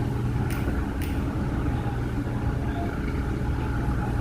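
Ship's engine running steadily with a low hum as the vessel leaves the dock, with two sharp clicks about half a second apart near the start.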